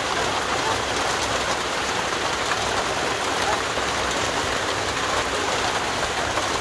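Heavy rain pouring down steadily onto grass.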